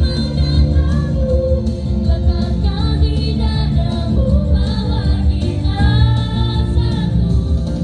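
Children's choir singing together, with accompanying music carrying a heavy bass line.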